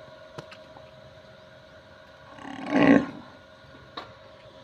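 One short, rough call from the cattle, under a second long, about two and a half seconds in. Two faint sharp clicks come before and after it.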